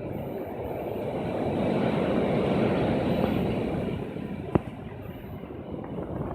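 Strong wind blowing in a gust that builds over the first few seconds, then eases off, with one sharp click about four and a half seconds in.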